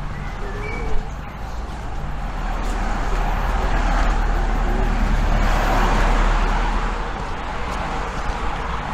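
A car passing on the street, its tyre and engine noise swelling to a peak about six seconds in and then easing off.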